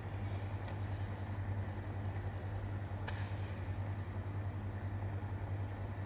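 Orange syrup bubbling at a boil in a stainless steel pot on a gas stove, over a steady low hum, with a couple of faint taps as orange slices go in.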